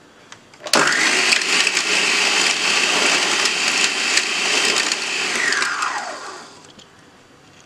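Electric mixer's food-processor chopper attachment running, its blade mincing boneless chicken pieces with chopped onion, garlic and herbs into keema. The motor starts abruptly about a second in, runs steadily for about five seconds, then is switched off and winds down with a falling whine.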